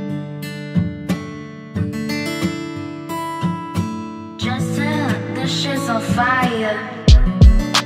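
Background music with a strummed acoustic guitar and a wavering melody in the middle. Two loud, deep thumps come about seven seconds in.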